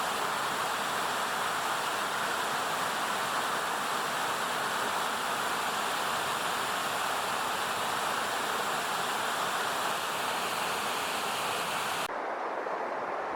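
Steady rushing of flowing water, a continuous even hiss with no bird calls standing out. About twelve seconds in it changes abruptly to a duller, thinner noise.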